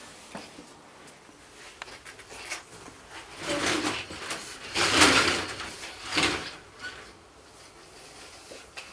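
Window roller shutter being hauled up by its pull strap in three pulls a little over a second apart, the middle one loudest.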